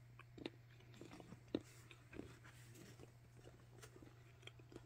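Faint chewing of a Ferrero Dark Opera chocolate with crunchy bits: a few soft mouth clicks and small crunches, the clearest about one and a half seconds in.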